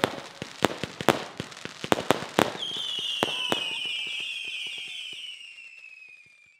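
Fireworks going off: a rapid string of sharp bangs and crackles, then, from about two and a half seconds in, a long high whistle that falls slowly in pitch and fades away near the end.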